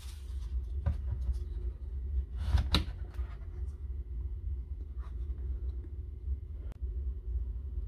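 A few hard plastic knocks and clicks from a power-tool battery pack being handled at its charger, the loudest about two and a half seconds in, over a steady low hum.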